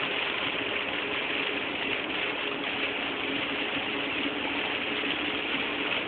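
Steady engine and road noise inside a moving car's cabin, with a faint steady hum under it.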